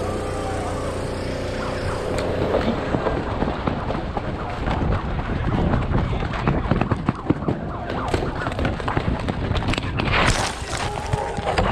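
A paintball player running over dirt, with quick crunching footsteps and gear rattling and knocking, over a steady background tone in the first couple of seconds.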